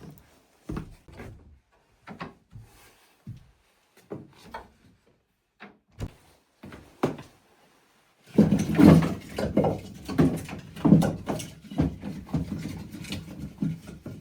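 Scattered wooden knocks and scrapes, then about eight seconds in a busy run of clattering and rubbing, as of things being handled and moved about.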